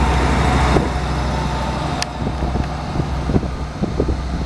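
GWR Class 158 diesel multiple unit pulling away past the platform. Its underfloor diesel engines hum loudly under power, easing back about a second in, then come a run of clacks and knocks from the wheels on the track as the rear car goes by.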